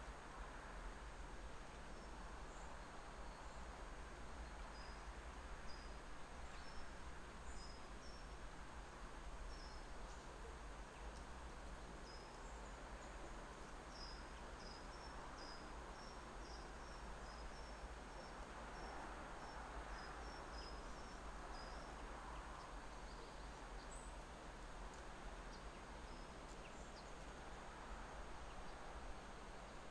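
Quiet outdoor ambience: a faint, steady hiss with a low hum beneath, and a small bird giving a run of short, high chirps, about two a second, through the middle of the stretch.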